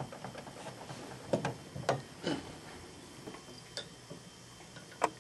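Brown glass beer bottle being handled and a bottle opener worked onto its crown cap: a few light clicks and knocks, then one sharp click near the end.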